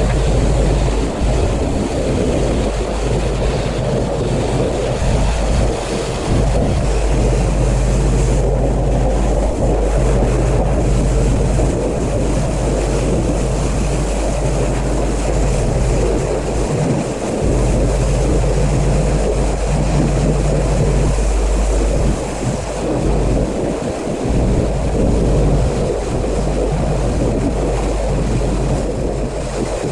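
Pressure washer running, its high-pressure water jet hissing as it sprays the siding, over a steady low hum from the machine's motor and pump. The spray noise dips briefly now and then as the jet moves or pauses.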